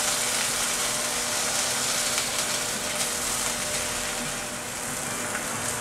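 Chicken pieces frying in hot oil in a nonstick skillet, sizzling steadily, with a faint steady hum underneath.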